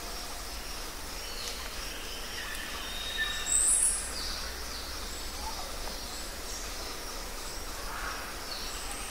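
Kayak paddle strokes and water lapping against the hull over a steady background hiss, with a few faint short high chirps and one brief, louder sharp high sound about three and a half seconds in.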